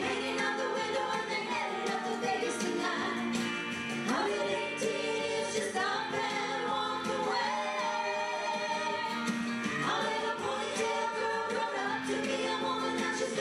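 Live music: a women's vocal group singing in harmony, several voices holding sustained notes together and changing chords every second or two.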